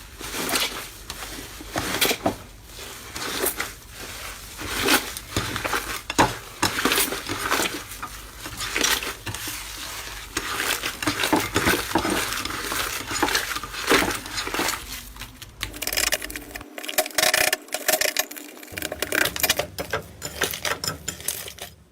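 Slime being squeezed and poked by hand, making a dense run of irregular crackles, pops and clicks.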